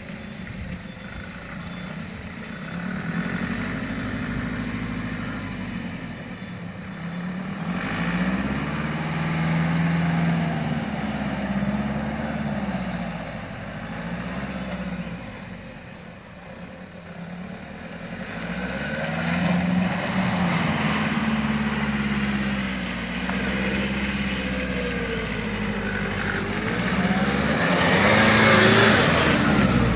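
Nissan Patrol four-wheel drive's engine revving up and down as it works through deep mud ruts. It is loudest near the end as the vehicle climbs a rutted mound close by.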